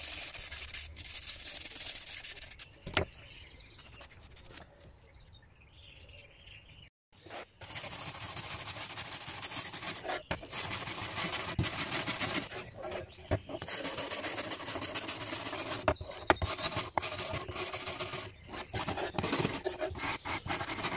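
Wire brush scrubbing rust off a steel sickle blade in quick, continuous back-and-forth strokes. It goes quieter for a few seconds in the middle, breaks off briefly, then resumes steadily.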